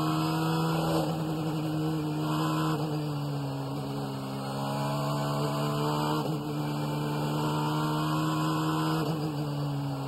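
Honda NSX GT500 race car engine heard from the cockpit, running hard with a steady, droning note. Its pitch shifts at about 1, 6 and 9 seconds, marking gear changes on a flying lap.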